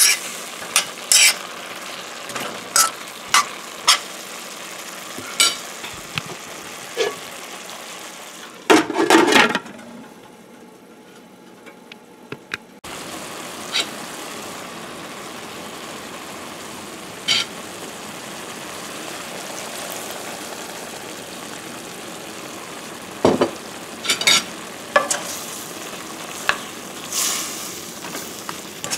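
Sliced onions and ginger sizzling in hot oil in a stainless steel skillet, with a metal utensil clinking and scraping against the pan as they are stirred. The taps come in clusters near the start and again near the end; the sizzle drops quieter for a few seconds about ten seconds in, then returns abruptly.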